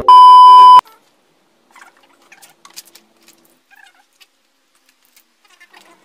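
A loud, steady TV test-card beep lasting under a second, played over colour bars as a 'technical difficulties' effect. After it, only faint scattered clicks and rustles.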